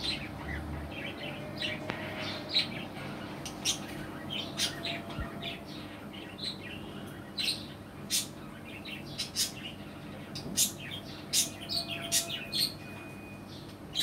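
Pet budgerigars chirping: short, sharp calls scattered irregularly, bunching into quick runs at times, over a steady low hum.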